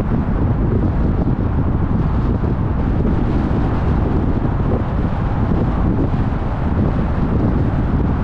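Steady road noise of a moving car with wind buffeting the microphone, a dense low rumble throughout.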